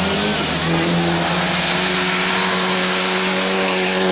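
Competition car engine at high revs, its pitch held nearly steady with a short break about half a second in, under a loud hiss.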